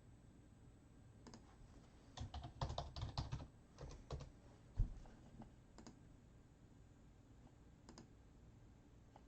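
Typing on a computer keyboard: a burst of quick keystrokes about two seconds in, one heavier thump just after, then a few scattered single clicks.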